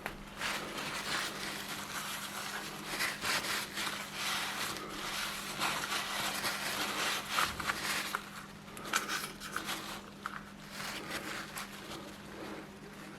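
Irregular scraping and rubbing with scattered light clicks, the sound of parts being handled and worked by hand, over a steady low hum.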